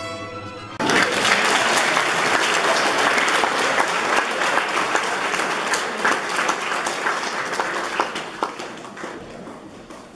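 Music cuts off about a second in, and a hall full of schoolchildren breaks into applause. The applause is loudest at first and slowly dies away near the end.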